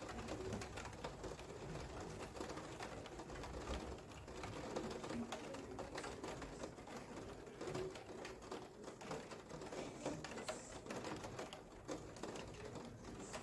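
Rain falling, with a dense, irregular patter of drops ticking on a hard surface.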